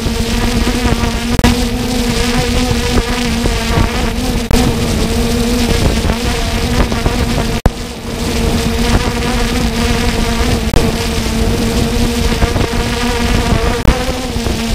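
Quadcopter drone's propellers buzzing at a steady, constant pitch, with wind noise on the microphone. The sound cuts out for an instant about halfway through.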